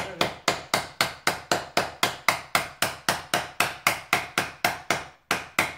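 Rapid, even hammer taps, about four a second, driving a new wheel bearing into place on a Polaris Sportsman 500 HO ATV. There is a short break about five seconds in, then a couple more taps.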